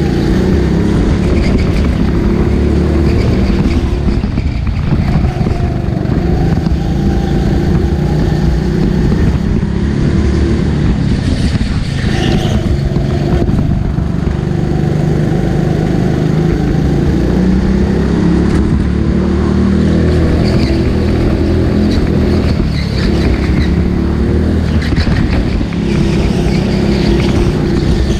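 Go-kart engine running hard around a track, its pitch rising and falling with the throttle, with short dips where it lifts off.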